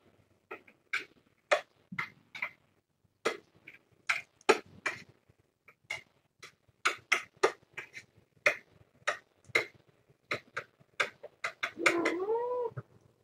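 A run of short, sharp clicks and taps, a few a second and coming more often later on. Near the end a cat meows once, with a call that rises and then falls.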